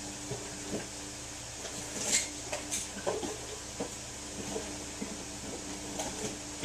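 Quiet room tone: a steady low hum with scattered faint clicks, and two brief rustles about two seconds in.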